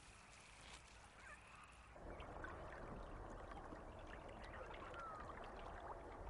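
Faint swamp water ambience: water trickling and splashing, with a couple of short, faint whistling animal calls. It is almost silent at first and the water sound comes in about two seconds in.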